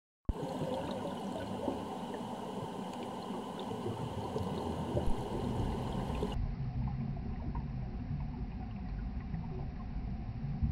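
Underwater ambient noise picked up by a camera in its housing: a steady hiss and low rumble with faint scattered crackles and clicks. About six seconds in it turns duller and lower.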